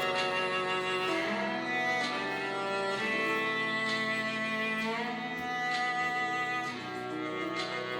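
Electronic instrumental music played back through a Samsung Galaxy phone's loudspeaker: sustained string-like chords that change about once a second, with light clicks on some of the changes.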